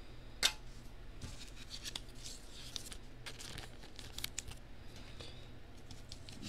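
Trading cards being handled and shuffled by hand: crinkly rustles and scrapes of card stock and packaging, with a sharp click about half a second in.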